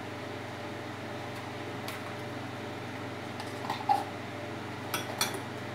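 Steady low mechanical hum with a few light clicks of a spoon as cooking cream is scooped from a tub into a steel saucepan, the sharpest about four seconds in.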